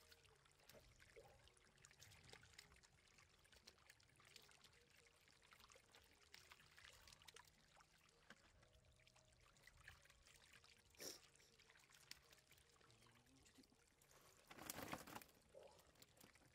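Faint trickle of rainwater running down a shallow muddy rivulet, with small splashes and clicks as stranded catfish are grabbed from it by hand. One louder burst of splashing comes near the end.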